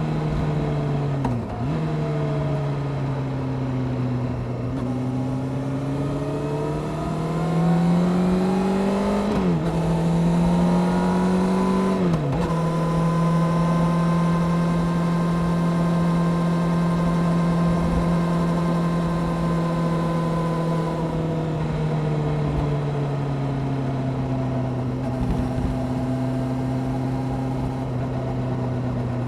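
Honda CBR600F4i's inline-four engine, fitted with a Delkevic aftermarket exhaust, pulling through the gears. Its pitch rises and drops sharply at two upshifts about nine and twelve seconds in, holds a steady cruise, then falls away as the throttle eases off about twenty-one seconds in.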